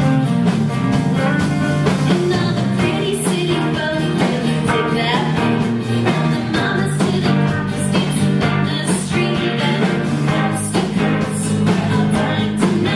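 A pop song with a voice singing over guitar and a steady beat.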